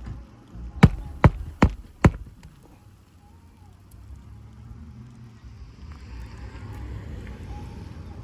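Four sharp knocks in quick, even succession about a second in, followed by a low steady background rumble.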